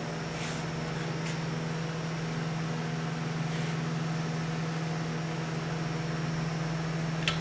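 Steady low hum with a faint hiss, the background tone of a workshop, with a few faint ticks.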